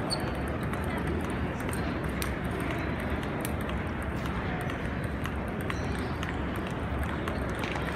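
Table tennis balls clicking off tables and bats, many sharp irregular ticks from several tables at once, over the steady din of a large tournament hall.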